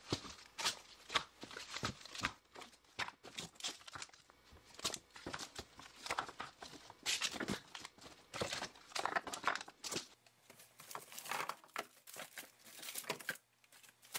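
Plastic-wrapped frozen meat packages and bags crinkling and knocking irregularly as they are handled and stacked in a chest freezer.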